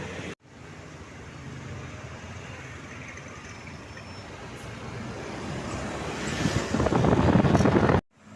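Road traffic: a vehicle approaching and passing close by, growing louder over the last few seconds, then cut off suddenly.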